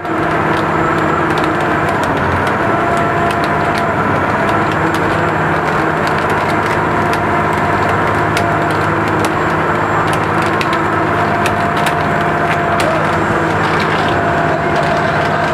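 Fishing trawler's engine running steadily, heard on board, with a light clattering rattle over the hum.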